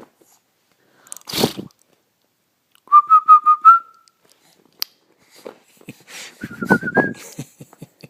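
Two short warbling whistles about three seconds apart, each a quick run of wavering notes, with a brief rustling burst before them.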